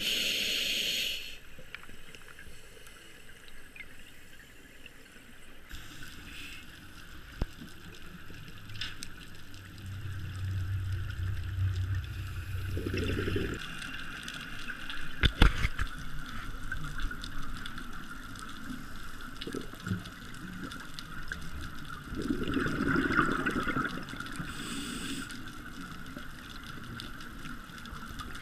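Muffled underwater sound picked up by a camera in its housing: a steady hiss with swells of bubbling rumble, twice, and a few sharp knocks about halfway through, typical of a scuba diver's exhaled bubbles.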